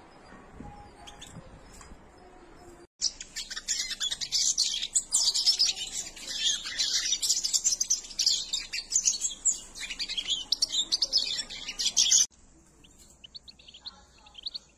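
Several European goldfinches chirping and twittering in a dense, fast chorus. It starts abruptly about three seconds in and cuts off suddenly about nine seconds later, with only faint, sparse chirps before and after.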